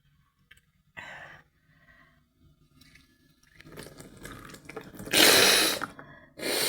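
Nasal wash with a syringe: liquid forced into one nostril and gushing and spattering back out with mucus, clearing a nose blocked up by allergy. A short sound comes about a second in, and the loudest rush about five seconds in.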